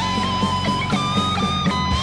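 Gibson SG Faded T electric guitar playing a lead line over a backing track with drums and bass: a high note held with vibrato, stepping briefly up and back down midway.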